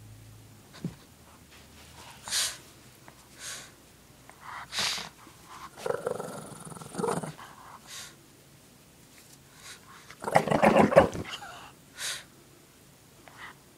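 Shih Tzu growling in play while gripping and shaking a blanket in its mouth. The growls come in a string of short bursts, with one longer, louder growl about ten seconds in.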